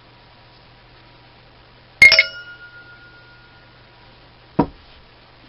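A small metal tool or part set down with a sharp clatter on metal, ringing briefly as it dies away. A single short knock follows about two and a half seconds later, over a faint steady hum.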